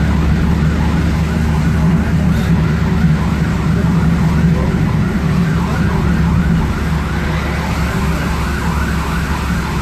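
Ambulance siren in a fast yelp, rising and falling a few times a second without a break. It is heard from inside a following car, over the car's steady engine and road drone.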